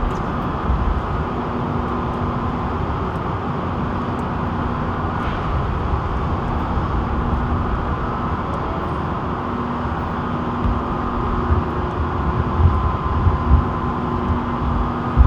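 Steady city street noise: vehicle engines and traffic rumble, with a constant low hum running under it.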